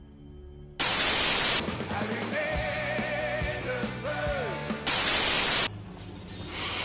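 Two short bursts of loud static, each under a second and about four seconds apart, with a brief snippet of music with a wavering melody between them.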